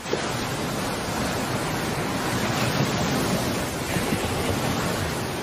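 Ocean surf on a beach: a steady rush of breaking waves that starts suddenly and eases off near the end.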